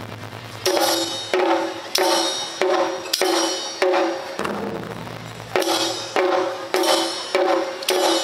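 Taiko drum ensemble playing: evenly spaced strokes on the barrel drums, a little under two a second, each ringing briefly.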